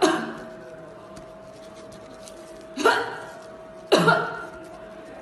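A woman coughing in short, harsh fits: once at the start, again just under three seconds in, and a double cough about four seconds in. A faint steady tone runs underneath.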